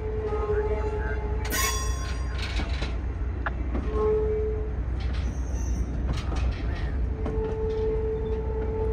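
Caltrain Nippon Sharyo bilevel gallery passenger cars rolling past: a steady low rumble of wheels on rail, with a few sharp clicks. A high, steady wheel squeal comes and goes: at the start, briefly about four seconds in, and again from about seven seconds on.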